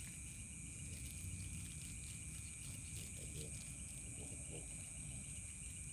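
Steady chorus of crickets and other night insects, with faint voices in the background.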